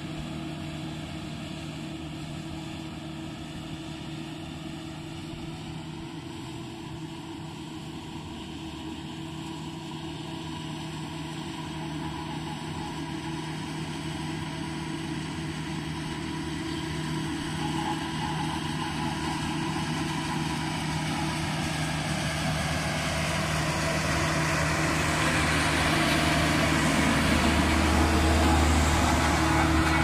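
HAMM single-drum road roller's diesel engine running steadily, growing louder as the roller comes closer. Near the end a deep low rumble comes in.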